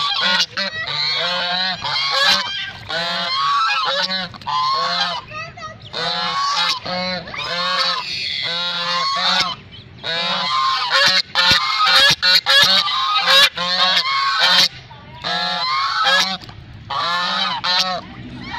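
White domestic geese honking over and over in quick runs of calls, with a few short pauses.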